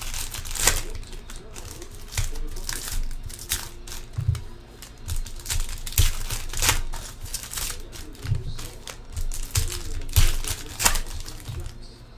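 Plastic trading-card pack wrappers being torn open and crinkled, with irregular sharp crackles and rustles as the packs are opened and the cards handled.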